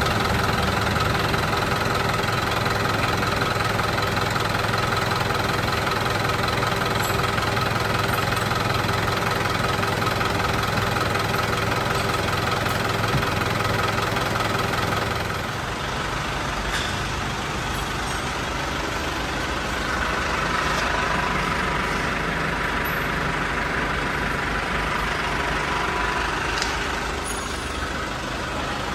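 Isuzu Traga's four-cylinder diesel engine idling steadily, with the newly fitted Denso air-conditioning compressor running.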